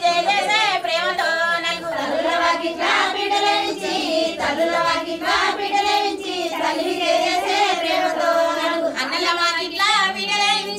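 High voices singing a Telugu wedding song, the melody wavering up and down without a break.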